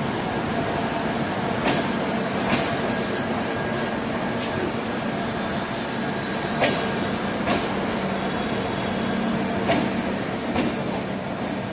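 LHB coaches of the Howrah Rajdhani Express rolling slowly past a station platform. A steady rumble of the wheels with a steady hum underneath, broken by three pairs of sharp clacks, the pairs under a second apart, as wheels cross a rail joint.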